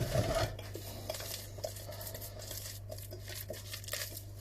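Faint rustling and small handling clicks from ingredients being worked by hand while making a burger mix, over a steady low hum.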